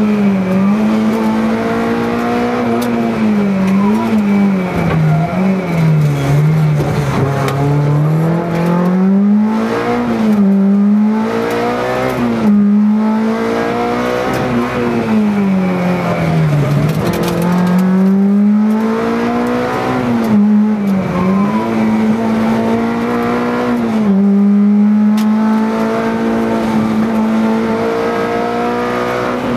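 Peugeot 309 rally car's engine heard from inside the cabin, running hard near the top of its revs at racing pace. Its pitch drops and climbs again about eight times, with steadier stretches near the end.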